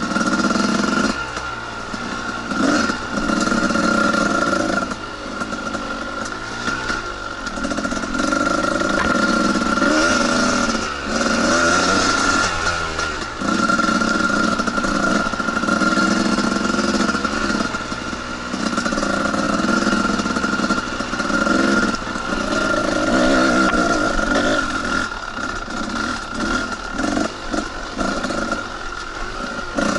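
Two-stroke dirt bike engine ridden on a trail, the throttle opening and closing in bursts every few seconds.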